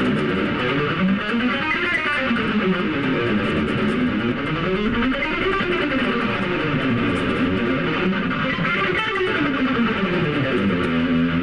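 Electric guitar playing fast single-note finger-exercise runs that climb up and fall back down in pitch several times over: a warm-up exercise for finger dexterity.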